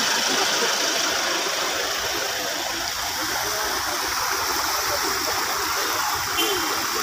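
Floodwater rushing across a road in a steady, even wash.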